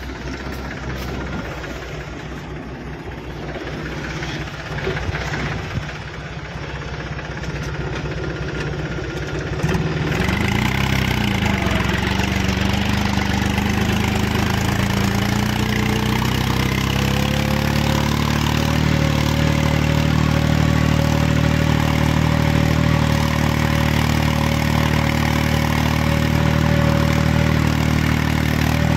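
Tractor's diesel engine pulling a loaded trolley across a field. About ten seconds in it gets louder and its pitch climbs over several seconds, then it holds steady at higher revs.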